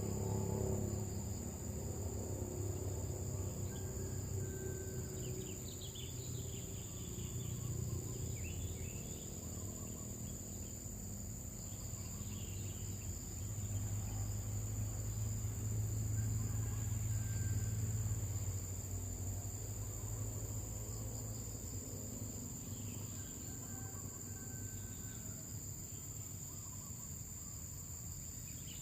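Insects, such as crickets, trilling steadily at a high pitch, with a few faint chirps and a low rumble underneath that swells about halfway through.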